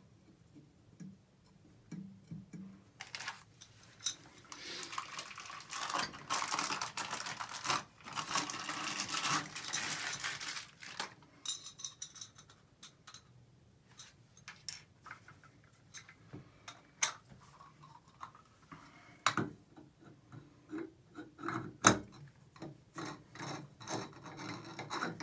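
Small metal clinks, taps and rattles of chrome faucet handles and trim parts being handled and fitted onto the stems of a three-handle Price Pfister tub and shower valve, with screwdriver clicks as a handle screw is driven. A stretch of continuous handling noise lasts several seconds in the first half, and sharper knocks cluster near the end.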